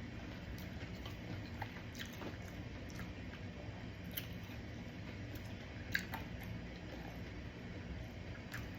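A person chewing a mouthful of food close to the microphone, with faint wet clicks scattered through it and a steady low hum underneath.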